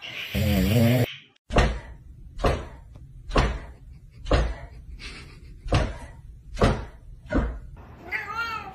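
A cow calls briefly, then come eight evenly spaced heavy thumps, about one a second. Near the end a cat starts meowing.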